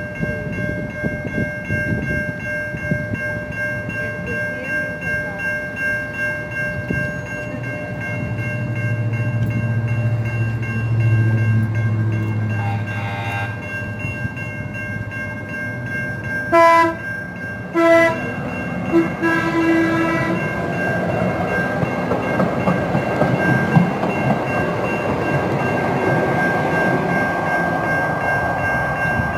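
San Diego Trolley Siemens SD100 light-rail train, first standing with a steady electrical hum, then two short horn blasts a little past halfway and a shorter third one. The cars then roll past with a rising rumble of wheels on rail.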